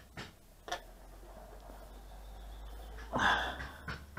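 Faint clicks and taps of small metal bolts and fittings being handled against a model yacht's plastic hull, then a louder handling rustle and knock about three seconds in.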